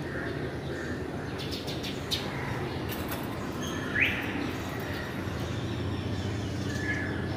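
A bird's short, quickly rising chirp about four seconds in, with a shorter call near the end, over a steady low background rumble; a few faint clicks come before the first chirp.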